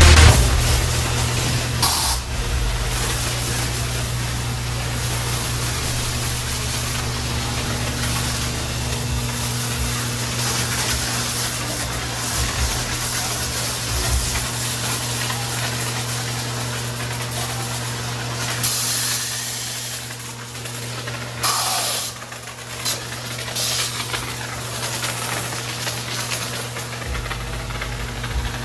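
High-pressure washer spraying water with a steady hiss over the constant hum of its pump motor.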